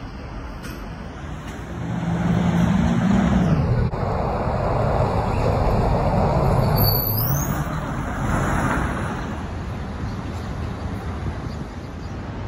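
City transit bus running close by in street traffic, loudest for several seconds in the middle, with a brief high squeal about seven seconds in, then steady traffic noise.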